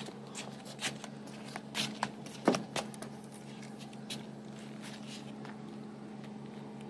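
Quiet, with a few faint clicks and taps scattered through, the clearest about two and a half seconds in, over a steady low hum.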